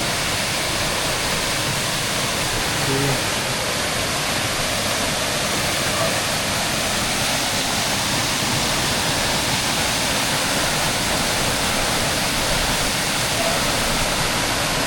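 Waterfall falling steadily, an even, unbroken hiss of water.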